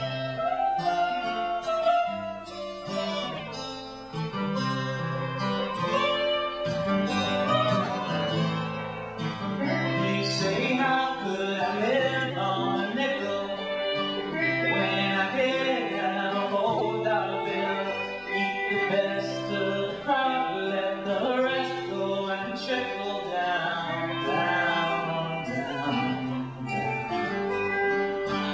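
Live acoustic folk band playing a song's instrumental introduction: guitar with a melody line moving above it.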